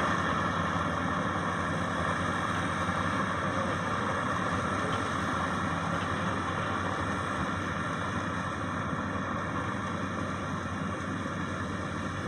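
Maxxi Bimo 102 combine harvester's diesel engine running steadily, slowly growing a little quieter.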